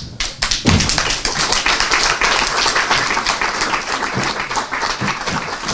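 Theatre audience applauding: dense, steady clapping that starts almost at once and keeps going.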